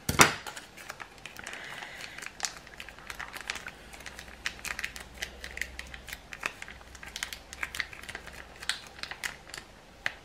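A plastic sachet of barbecue sauce crinkling and crackling in irregular small clicks as it is squeezed and worked between the fingers to empty it. One loud sharp click from the scissors comes just after the start.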